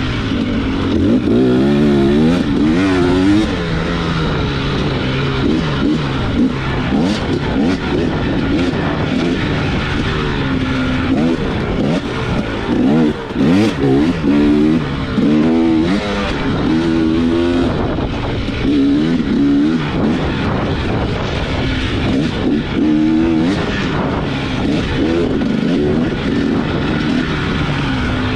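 Dirt bike engine revving up and down constantly as the throttle is worked over rough off-road terrain, with occasional sharp knocks.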